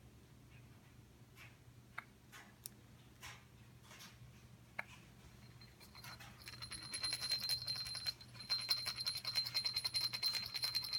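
Rapid metallic jingling over a steady high ringing, like a small bell being shaken. It starts about six seconds in and lasts about five seconds, with only faint scattered ticks before it.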